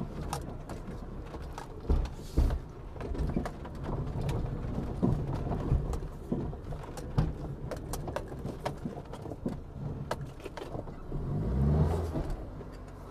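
SUV driving slowly over rough dirt ground: the engine runs low under many short knocks and rattles from the chassis, the suspension noise that points to worn chassis parts. The engine note rises and falls briefly near the end.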